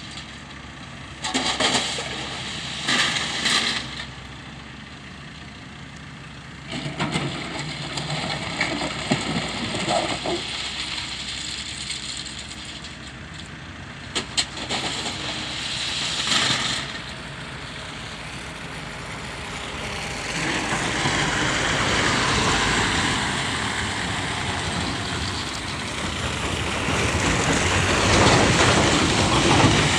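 Wheeled excavator's diesel engine running, with several short louder surges of noise in the first half and a steadier, louder rise in the last ten seconds.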